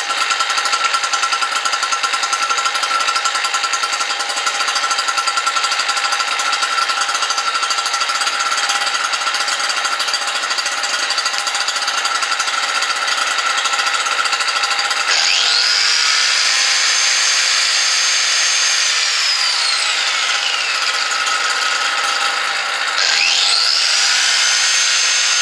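A small 63 cc two-stroke generator running steadily. About halfway through, a 750 W angle grinder plugged into it spins up with a rising whine and runs, loading the generator, then winds down slowly and spins up again near the end.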